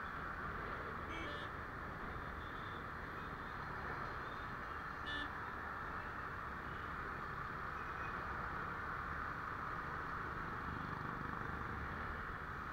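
Steady rush of wind and road noise from a motorbike riding through city traffic. Two short high beeps cut through, about a second in and again about five seconds in.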